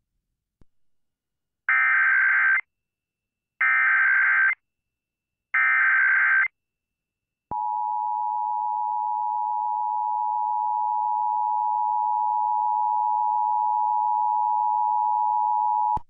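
Emergency Alert System tones for an Amber Alert: three short bursts of the buzzy SAME data header, each about a second long and about two seconds apart, then the steady two-tone EAS attention signal, which runs unbroken for about eight seconds.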